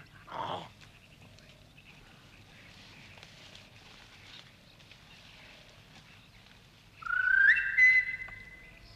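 A person whistles one note about seven seconds in, sliding up in pitch and then holding steady for about two seconds. Before it there is only faint background hiss.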